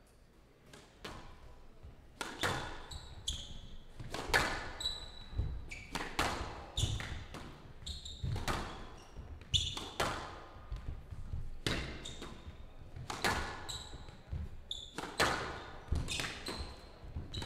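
Squash rally: the ball cracking off rackets and the court walls about once a second, starting about two seconds in, with short high squeaks of court shoes on the floor between shots.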